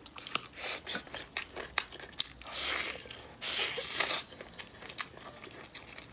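Close-up eating sounds of braised pork knuckle: chewing and biting with many sharp clicks and smacks. About two and a half and three and a half seconds in come two longer, louder noisy stretches as the knuckle is torn apart by hand.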